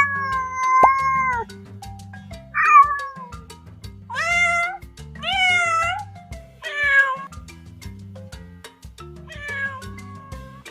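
Domestic cat meowing about six times, each meow short to about a second and a half long, several rising then falling in pitch. Background music with a steady low beat plays underneath.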